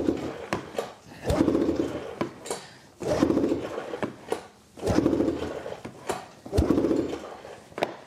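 2006 Arctic Cat M7 snowmobile's two-stroke twin being pulled over on the recoil starter: about four pulls, less than two seconds apart, each a short whirring turn of the engine that never catches. It is a no-start that the owner says just floods out however long it is pulled.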